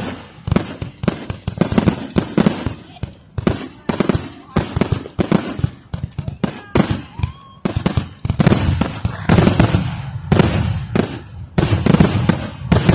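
Aerial fireworks going off in a rapid, continuous barrage, several sharp bangs a second with a low rumble between them.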